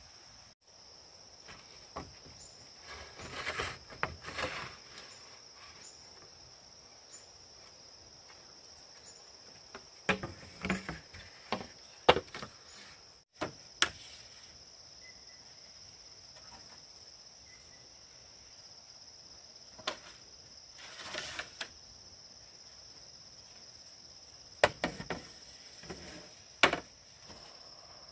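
Hollow knocks and clatter of split bamboo pieces being handled and laid onto a bamboo roof frame, in scattered groups, with the sharpest knocks about twelve seconds in and near the end. Under them runs a steady, high-pitched insect chirring.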